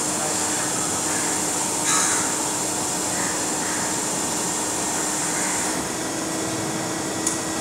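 Wagon tippler turning a loaded rail coal wagon over, its drive machinery running with a steady hum and hiss. There is a brief louder hiss about two seconds in and a sharp click near the end.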